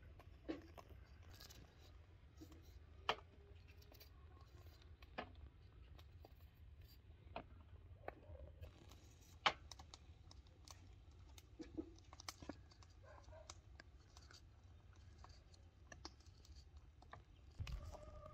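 Small kitchen knife peeling and slicing kiwifruit: quiet scrapes and scattered sharp clicks of the blade, the loudest about three and nine and a half seconds in.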